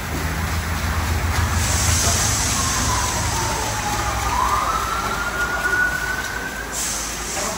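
Tunnel car wash machinery running: foam wrap-around brushes spinning against a car amid water spray, over a steady low hum. A hiss of spray comes in about a second and a half in and stops near the end, and a thin whining tone dips, then rises and holds through the middle.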